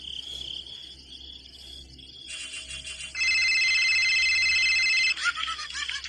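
Telephone ring tone sound effect: a loud, steady electronic ring lasting about two seconds in the middle, after a few faint clicks, followed by short high squeaky chirps.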